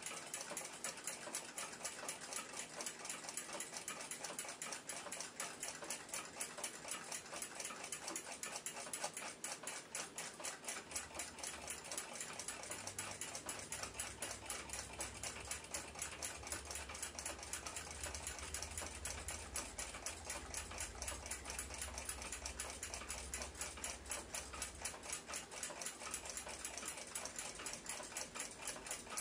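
Rapid, steady ticking of a clock movement, many even ticks a second.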